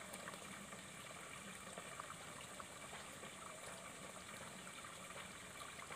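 Faint, steady rush of a flowing, muddy river.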